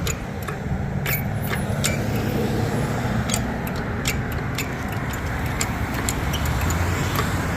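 Steady rumble of road traffic, with scattered light clicks.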